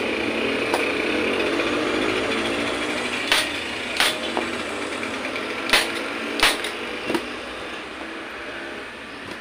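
Hand staple gun firing staples through a motorcycle seat cover into the plastic seat base: several sharp clacks at uneven intervals, some coming in pairs about a second apart. A steady hum runs underneath.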